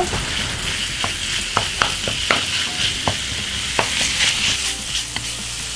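Raw pork mince sizzling steadily in hot oil in a wok. A wooden spatula breaking it up and stirring adds scattered scrapes and taps against the pan.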